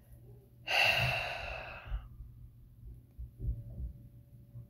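A woman's long, heavy sigh: one breathy exhale that starts under a second in and lasts a little over a second, exasperated.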